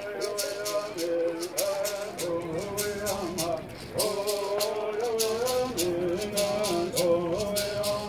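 Bird singers singing a traditional Yuman bird song, a melody moving in steps with short breaks, over gourd rattles shaken in a steady beat.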